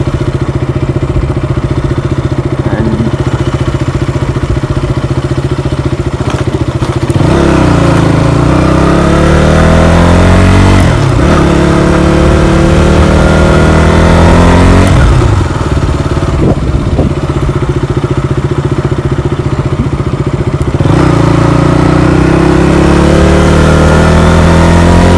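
KTM motorcycle engine under way: it runs steadily at first, then revs up with the pitch climbing and dropping back at each of two gear changes, and pulls up again near the end.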